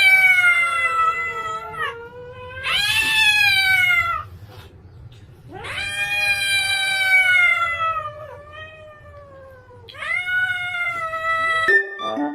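A cat yowling in four long drawn-out calls, the third the longest, with short pauses between them.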